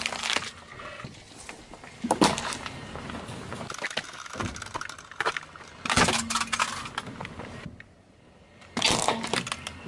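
Car tyre slowly rolling over and crushing brittle plastic objects on asphalt: plastic toothpick containers and a plastic toy airliner. Loud cracking crunches come several times, as the crushing ends at the start, about 2 s in, about 6 s in and near the end, with quieter grinding and crackling between them.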